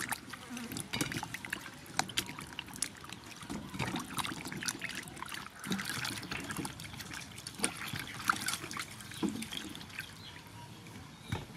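Water splashing, trickling and dripping as hands wash peeled cucumbers in a metal basin of water and lift them out, with scattered short knocks and splashes at uneven intervals.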